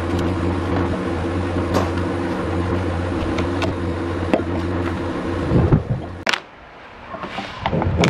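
Steady machine hum with sharp cracks and scrapes of dry bark being pried off a log with a knife. The hum stops about six seconds in, and after a brief lull come a few knocks as the log is handled.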